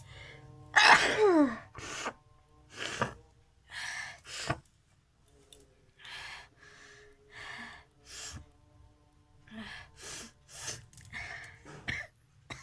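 A person sneezing loudly about a second in, with a voiced cry that falls in pitch, followed by a string of shorter, quieter breathy bursts, sniffs or small sneezes, roughly one a second.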